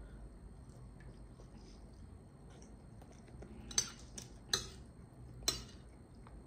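Close-up chewing of food, with three sharp clinks of a metal spoon against a ceramic plate in the second half.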